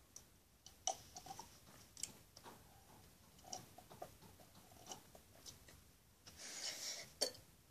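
Faint scattered clicks and ticks, with one short breath near the end.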